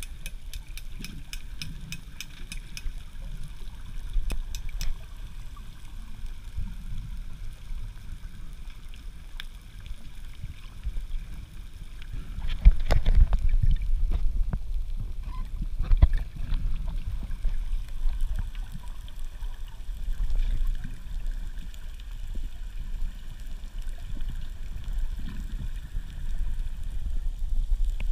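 Muffled underwater sound picked up by a submerged camera: a steady low rumble of moving water, with faint rapid clicking in the first few seconds. From about 12 to 16 seconds in come louder splashing and sloshing as the camera moves up near the surface.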